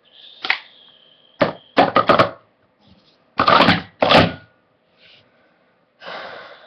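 Plastic sport-stacking cups clattering against each other and the table as they are stacked up and brought down, in several quick bursts of clacks, the loudest in the middle.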